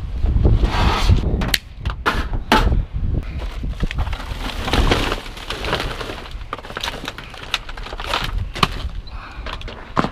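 Clatter and scattered knocks of junk being handled in a dumpster, with wind buffeting the microphone for the first second or so.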